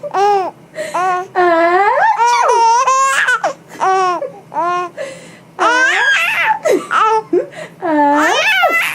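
Baby laughing and babbling in a string of short, high-pitched squeals whose pitch slides up and down.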